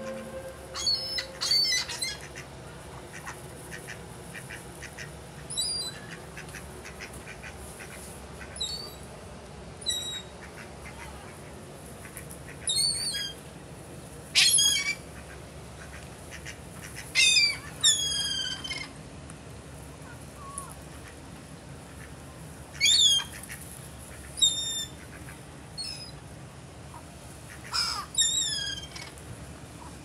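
Birds calling: short, high, sharp calls, many falling in pitch, one or two at a time every few seconds.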